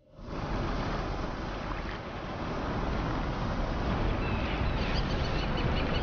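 Steady rush of wind and sea surf that sets in abruptly, with faint, high, chirping bird calls in the second half.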